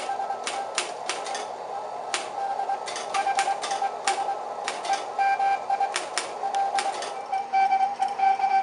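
Computer keyboard keys clicking as they are typed, over a Morse code (CW) tone beeping on and off. About seven seconds in, the Morse tone grows louder and more continuous.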